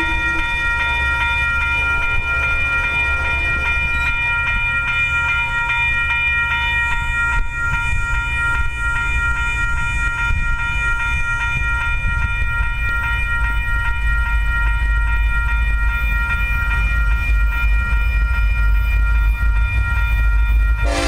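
Railroad grade-crossing warning bell ringing steadily over a low rumble.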